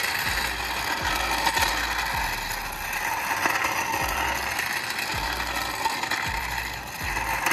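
Orange Daytona steel floor jack being towed on its wheels over cracked asphalt, giving a continuous clattering, rattling roll.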